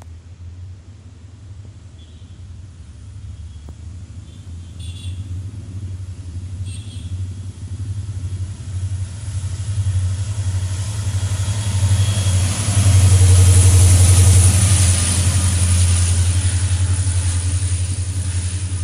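EMD WDP4D diesel-electric locomotive with its 16-cylinder two-stroke engine approaching and passing at speed at the head of an express train: a low engine rumble grows steadily louder and is loudest about 13 seconds in as the locomotive goes by, then gives way to the rolling hiss of coach wheels on the rails.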